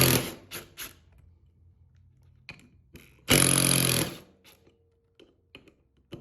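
Cordless impact driver run in one short burst of just under a second about three seconds in, with a few light clicks and knocks from handling around it.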